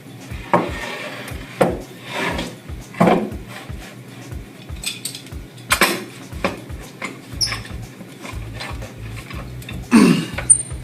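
Irregular knocks and clatter of hard objects, roughly one a second, with a louder knock near the end, from work on a wooden cabinet door.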